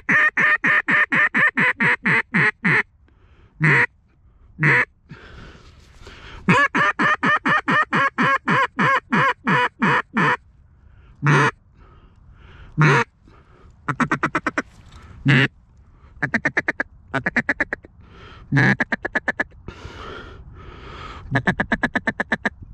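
Mallard duck call blown in sequences of loud, close quacks: long descending-style runs of about five quacks a second, single quacks in between, and quicker clipped chatter runs in the second half, as a hunter calls to draw mallards in.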